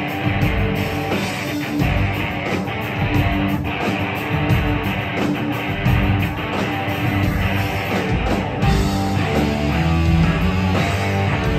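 Live rock band playing an instrumental passage: electric guitars over a driving drum kit, with no singing.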